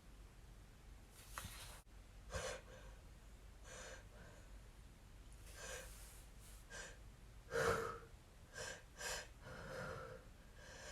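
A man's short, faint breathy gasps, about ten of them spread over several seconds, coming closer together and the strongest about three-quarters of the way through: the catching breaths of a sneeze building up.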